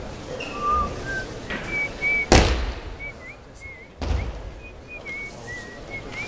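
Sports hall ambience: repeated short, wavering high chirps at a steady pitch. A single sharp bang with a hall echo about two seconds in is the loudest sound, and a duller thump follows about four seconds in.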